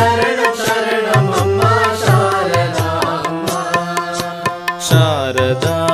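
Indian devotional song to Sarada Devi: a melody with sliding pitches over a steady tabla-style drum beat.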